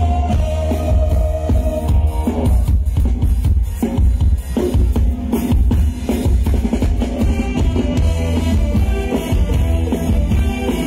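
Loud Thai ramwong dance music from a band with heavy bass and a drum kit. About two seconds in, the tune drops out briefly and mostly drums play, then the full band comes back in.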